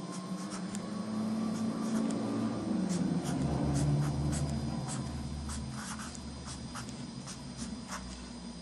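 Irregular light clicks and scratches, with a low hum that swells in the middle and then fades.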